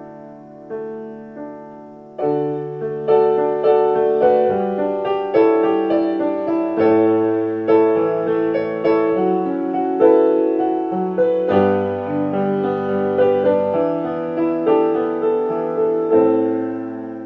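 Solo piano playing a slow passage of chords, each note struck and left to fade. It is soft at first, then grows fuller and louder from about two seconds in.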